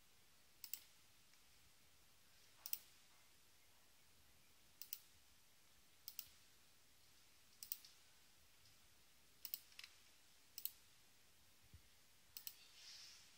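Computer mouse buttons clicking, about eight times, each mostly a quick double click or a short run of clicks, spaced about one and a half to two seconds apart, in a near-silent room.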